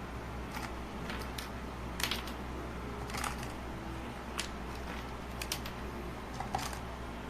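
Mechanical keyboard switches being pressed and handled: a dozen or so scattered sharp clicks, some in quick pairs, over a steady low hum.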